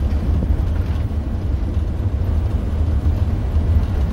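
Steady low rumble of a motorhome driving at highway speed, heard from inside the cab: engine and road noise.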